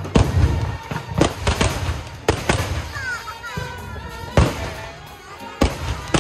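Firecrackers going off in a string of sharp, loud bangs at uneven intervals, about eight in six seconds.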